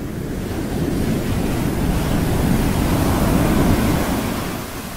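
A wind-like rush of noise that swells to its loudest about three and a half seconds in, then dies away.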